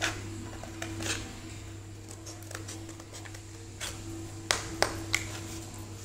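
Scissors snipping through thin cardboard: a string of short, sharp snips, one about a second in and three in quick succession between four and a half and five seconds in, over a steady low hum.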